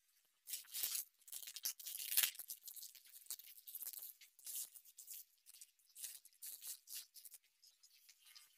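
Small white decorative pebbles poured from a plastic bag into a plant pot, clattering against each other in a dense run of rattling clicks that starts about half a second in and thins out near the end.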